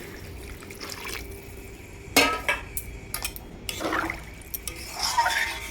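Water being poured into a pan of cooking chicken and moong dal curry, with a ringing clank about two seconds in and a few smaller knocks of a vessel against the pan.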